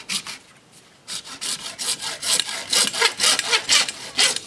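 Hacksaw cutting through PVC pipe, its blade rasping back and forth. A few light strokes at first, then quick, steady strokes from about a second in.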